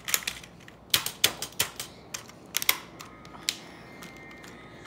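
Typing on a Vivitar LVLUP Pro gaming keyboard: irregular key clicks and taps, which stop about three and a half seconds in.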